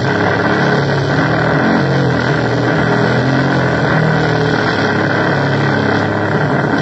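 Loud electronic noise music from a keyboard: a dense, steady wash of noise with low droning tones that shift up and down in pitch.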